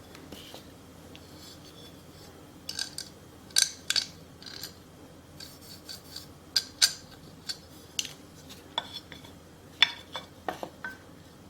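A hand tool scraping and scratching on gritty asphalt: about a dozen short, irregular strokes, with the sharpest few around the middle and near the end.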